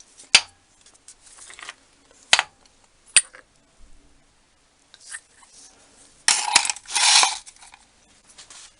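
Metal blocks being handled on a workbench: three sharp metal clinks a second or so apart, then about a second of rattling and scraping metal near the end.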